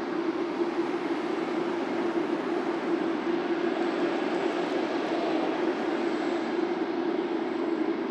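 Boeing 747-8F freighter's four GEnx turbofan engines at low taxi power as the jet rolls past. The sound is a steady rush of engine noise with a constant low drone held at one pitch.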